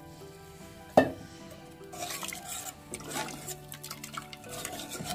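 A steel ladle stirring cooked black-eyed beans and freshly added water in an aluminium pressure cooker, scraping and clinking against the pot. One sharp knock of metal on metal comes about a second in.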